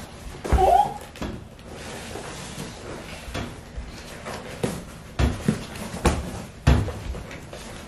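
Large cardboard box being handled on a wooden floor: irregular knocks and thumps as it is lifted and pushed about, with a brief child's vocal sound about half a second in.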